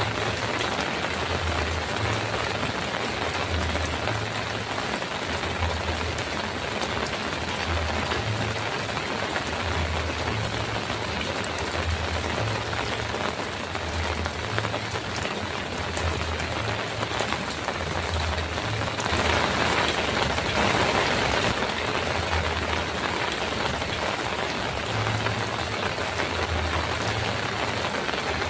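Heavy rain falling steadily on a metal roof, a dense even hiss. It swells louder for a couple of seconds about two-thirds of the way through. A low throb recurs beneath it about once a second.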